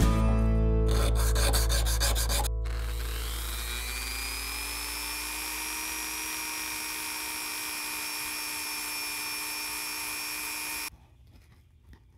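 Background guitar music ends about two and a half seconds in. A handheld rotary tool with a sanding drum then spins up with a rising whine and runs steadily while a small lure lip is sanded against the drum. The tool cuts off suddenly near the end.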